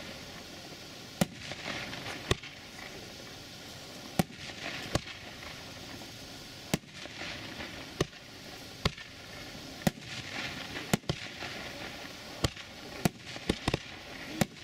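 A 36-shot, 63 mm consumer fireworks cake (Profi FC6336) firing in sequence. Sharp reports come roughly once every second or so, with a hiss from the bursts between them. A rapid cluster of several reports comes near the end.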